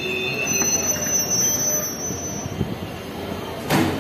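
Passenger train wheels squealing on the rails, thin high whining tones over the steady rumble of rolling coaches, fading out after a couple of seconds. A single loud thump comes near the end.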